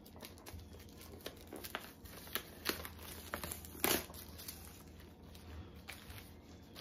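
Packaging crinkling as it is handled: a fairly quiet run of small, irregular crackles, with one louder rustle about four seconds in.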